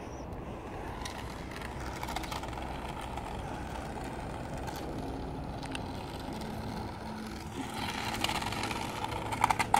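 Remote-control toy Lamborghini driving across a rough asphalt driveway: a steady whirr of its small motor and wheels, with a few clicks near the end.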